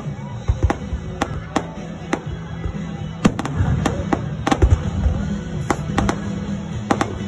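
Aerial fireworks going off: rapid, irregular bangs and crackles several times a second, with a few heavier booms, over music playing along.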